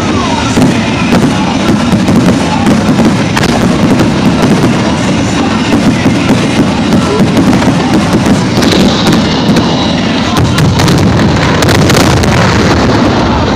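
Dense, unbroken barrage of aerial fireworks: many bursts and crackles running together into a steady loud rumble.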